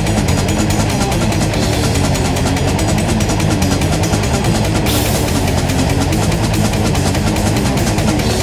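Metal music: a heavily distorted guitar riff over fast, dense drumming, loud and unbroken.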